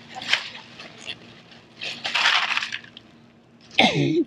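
Ice cubes clattering out of a plastic bag into a bucket of water, in a few short rattling bursts. Near the end comes a short, louder sound whose pitch slides downward.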